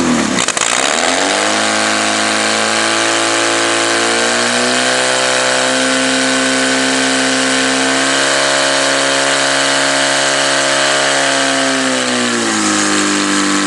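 Portable fire pump's engine revving up to full throttle about a second in, then running steadily at high revs while it drives water through the attack hoses. The pitch eases down a little near the end.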